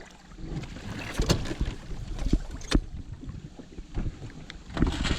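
Irregular knocks and clunks in a jon boat, several in quick succession about a second in and again near the end, over a low rumble of wind on the microphone.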